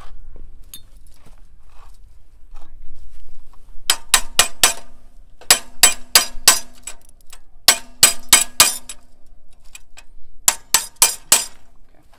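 Hammer striking the steel knife bar of a New Holland 451 sickle bar mower while the knife sections are being replaced. The blows come in four quick bursts of about five each, every blow sharp and ringing.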